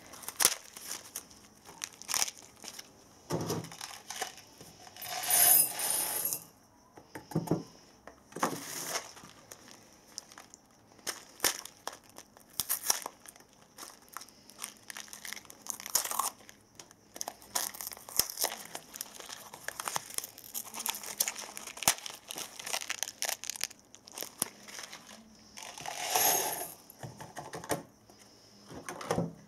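Small cardboard candy boxes being torn open and handled by hand: crinkling and tearing of the packaging with many short clicks and taps. Two longer tearing sounds come about five seconds in and again near the end.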